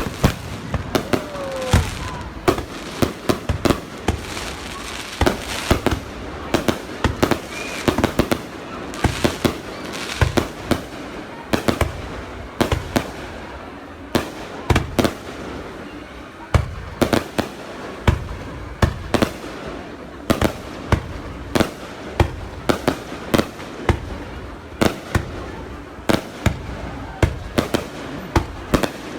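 A fireworks display going off without pause: many sharp bangs and pops at an uneven pace, several a second at times, over a constant rumble of more distant bursts.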